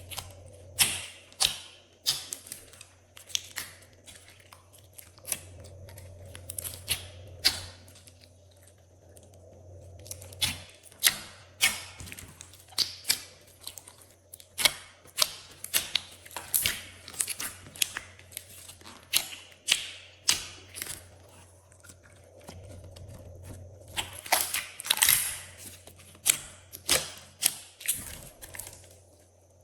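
Glossy slime being squished, pressed and stretched by hand, making irregular flurries of short sticky clicks and pops of trapped air, with brief pauses between handlings.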